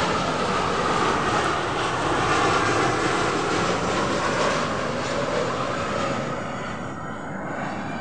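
Twin-engine jet airliner passing low overhead, its engines a loud, steady noise that starts to fade about six seconds in as it moves away.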